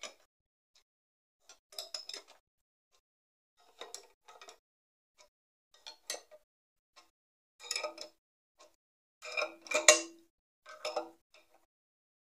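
A socket ratchet turning the threaded rod of a home-made screw puller that is drawing a cylinder liner out of a diesel engine block. It clicks and clinks in short bursts about every two seconds, one burst per stroke of the handle, and the loudest burst comes about ten seconds in.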